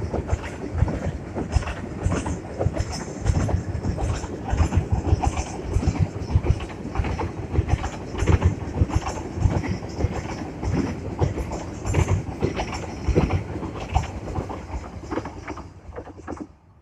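Train passing close by, its wheels clattering over the rail joints in quick irregular knocks; the sound cuts off sharply near the end.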